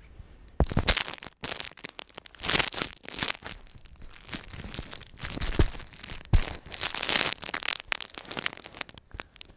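Handling noise right on a GoPro camera's microphone as a baby grabs it and mouths it: irregular scraping, crackling and sharp knocks, starting about half a second in.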